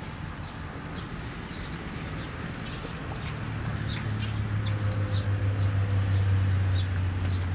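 Small birds chirping in short, high, falling notes, repeated many times, over a low steady hum that grows louder from about halfway through.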